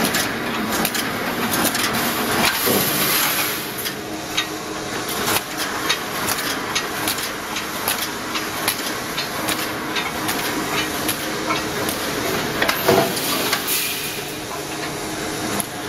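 Automatic wire mesh welding machine running: a steady mechanical hum with repeated sharp clacks and knocks as the welding head cycles and welds the cross wires into fence mesh.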